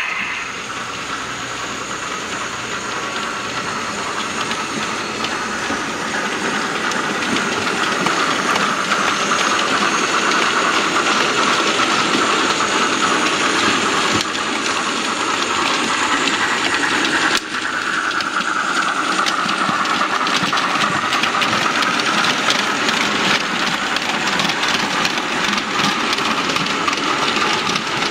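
Model steam train running on a layout: a steady steam hiss and locomotive sound, with the wheels clattering over the track. The sound drops for an instant a little past halfway.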